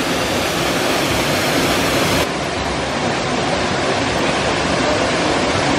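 Steady, loud rush of a waterfall pouring into a rock pool. About two seconds in the sound changes abruptly and loses its highest hiss.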